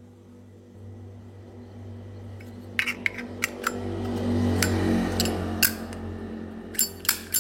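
Metal clicks from a Zippo lighter being handled: sharp clicks of the lid and flint wheel, a few in quick succession from about three seconds in and again near the end. Under them a low hum swells and fades in the middle.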